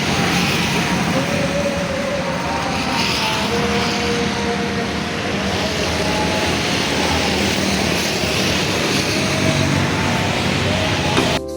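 Steady engine noise, an even hiss and rumble with faint humming tones that shift slightly in pitch.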